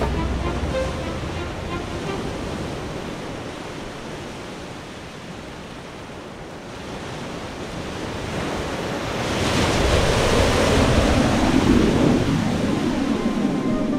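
A soft rushing noise like wind or surf that fades down, then swells to its loudest about ten seconds in, with falling pitched sweeps near the end.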